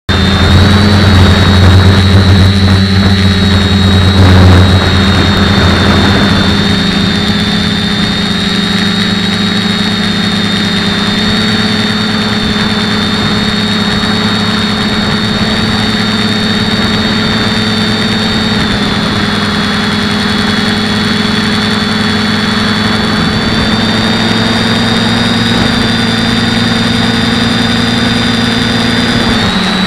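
Quadcopter's electric motors and propellers whining steadily, heard from the onboard camera. It is louder for the first four or five seconds, then holds an even pitch with small shifts, dipping briefly just at the end.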